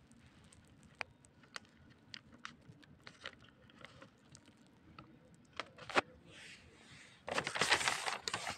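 Newspaper rustling and crackling, with scattered light crackles and ticks, then a louder rustle of paper about seven seconds in.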